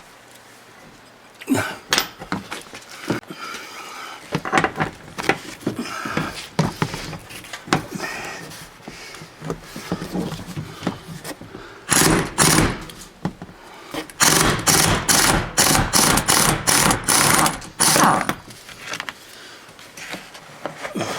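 Impact wrench hammering in two runs of short bursts, about twelve and fourteen seconds in, as it breaks loose the seat bolts. Before that come scattered clinks and knocks of tools being handled.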